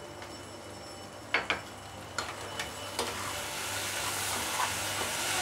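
Chopped bottle-gourd peel and potato sizzling as they fry in oil in a nonstick kadhai, the hiss growing louder. A metal ladle scrapes and taps against the pan a few times as the vegetables are stirred.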